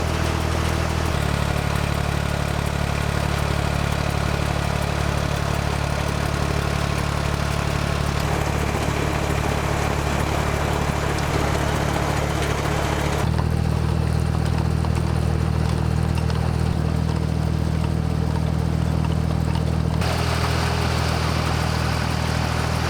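Ford tractor engine running steadily as it pulls a hay baler. Its tone changes abruptly about a second in, about thirteen seconds in and about twenty seconds in.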